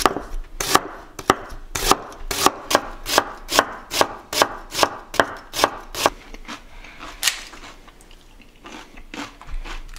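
Kitchen knife slicing white cabbage into thin strips on a wooden cutting board: quick, even strokes about three a second for some six seconds, then a pause with one more cut and a few faint ones near the end.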